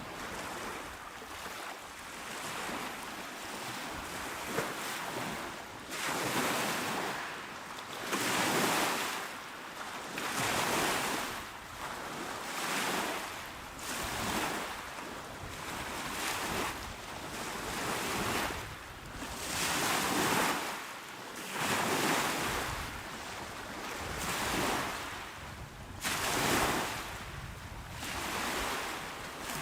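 Calm sea waves washing onto the shore, swelling and falling back in a steady rhythm of roughly one surge every two to three seconds.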